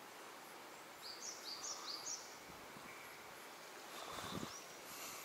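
Quiet outdoor ambience with a steady hiss and a bird calling: three short rising high notes about half a second apart, about a second in. A soft low rustle comes about four seconds in.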